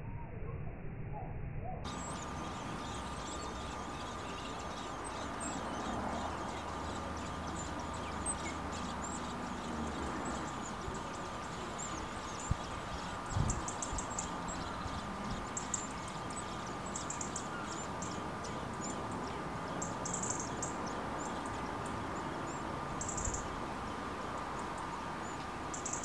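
Common blackbird nestlings begging in the nest: thin, very high-pitched cheeps, scattered at first and then in short clusters, over a steady background hiss with a faint constant tone. A couple of soft knocks come about halfway through.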